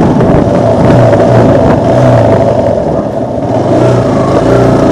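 Motorcycle engine running steadily at low road speed while riding, heard from the handlebars, with no sharp revving.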